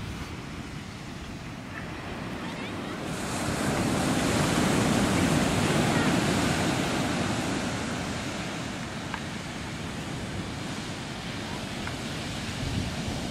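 Ocean surf: waves breaking and washing up a sandy beach. The wash swells to its loudest about four seconds in, then eases off.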